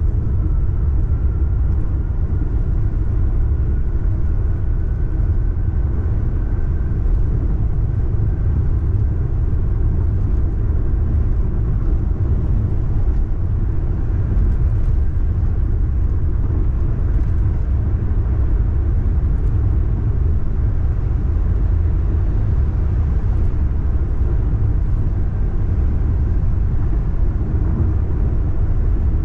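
Car travelling on a toll road at speed: a steady low road rumble, with a faint rising whine over the first few seconds.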